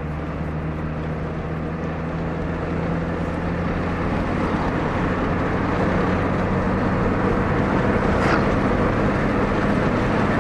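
Motor vehicle engine noise with a steady low hum, growing gradually louder, and a brief high squeak about eight seconds in.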